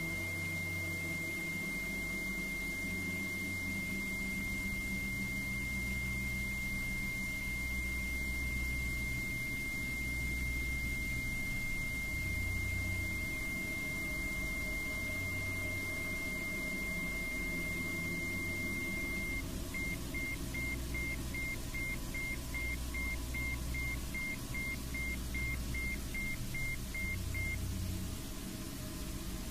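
A high, steady pure tone held over a low, slowly swelling ambient drone in a healing-frequency meditation track. About two-thirds of the way through, the tone starts pulsing on and off about twice a second, then stops shortly before the end while the drone carries on.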